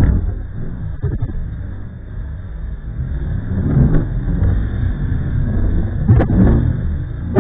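Strong wind buffeting the nest camera's microphone: a low rumble that swells and eases in gusts, with the strongest gust about six seconds in.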